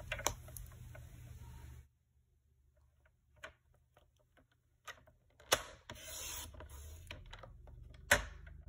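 Quiet handling of a paper trimmer: a few light clicks and taps as the foam sheet is pressed into place and the cutting-blade carriage is set at the top of its track, with a brief soft scrape about halfway through.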